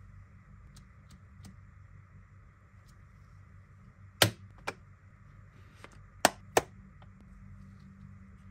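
Sharp plastic clicks from handling a Blu-ray steelbook: a disc snapping off the clear tray's centre hub, then two more sharp clicks a little later as the case is handled and shut, over a steady low room hum.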